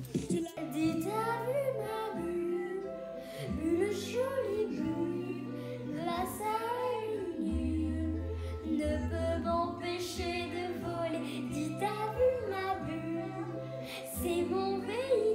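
A young girl singing a pop melody over a backing track with a steady, repeated bass line.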